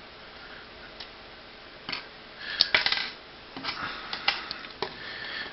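Small plastic model-kit parts being handled: a string of light clicks and brief rustles, bunched together around the middle and towards the end.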